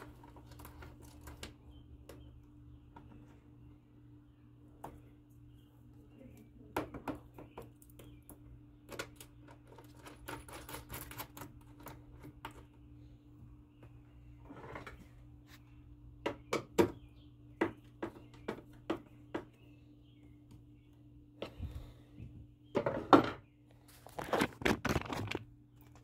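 Scattered clicks and knocks of cable lugs, terminal bolts and hand tools being handled as cables are fastened to lithium battery terminals, over a faint steady hum; the loudest knock comes near the end.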